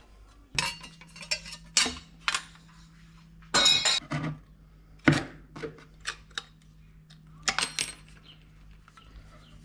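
Hand tin snips cutting thin aluminium sheet: a string of about a dozen sharp, irregular metallic snips and clinks. A longer clatter comes about three and a half seconds in. A faint steady low hum runs underneath.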